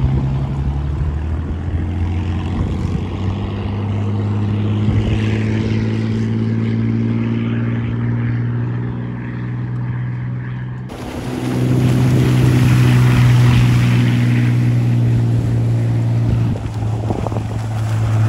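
Inboard engine of a Chris-Craft barrel back mahogany runabout running under way at a steady pitch, with water rushing along the hull. It gets louder about eleven seconds in as the boat runs at speed, with spray and wind hiss near the end.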